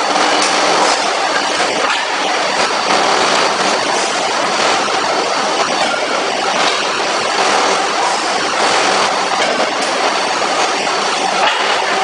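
Loud steady din of forging-shop machinery around a CNC close-die forging hammer, a dense hiss-like noise with faint knocks now and then.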